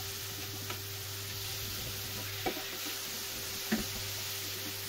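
Diced onion and minced chicken sizzling gently in oil in a nonstick frying pan while a spatula stirs and breaks up the chicken. A couple of light taps of the spatula on the pan come in the second half.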